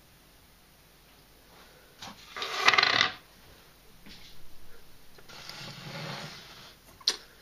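Handling noise at a makeup table: a loud, short rustle or scrape about two seconds in, a softer shuffle a few seconds later, and a single sharp click near the end.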